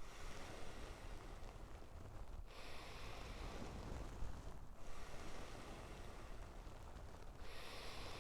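A person's deep breathing close to the microphone: full breaths drawn in and blown out in turn, each about two seconds long, with short breaks between them.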